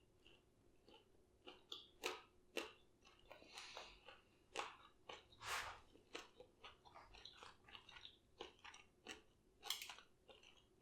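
Faint, irregular crunching and chewing of a boneless chicken wing coated in crunchy Cheetos.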